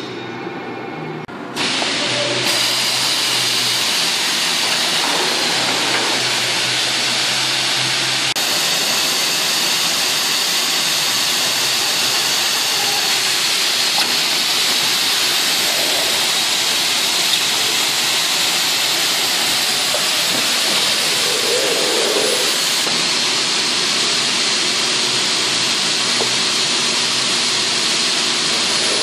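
Steady loud hiss from a pneumatic octabin box-erecting machine running, with its air-driven cylinders and suction-cup tooling. A low hum runs under it for the first several seconds.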